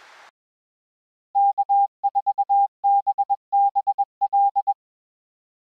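Morse code sent as a single steady beeping tone, keyed in dashes and dots that spell out the amateur radio callsign K4BBL. It starts a little over a second in and lasts about three and a half seconds.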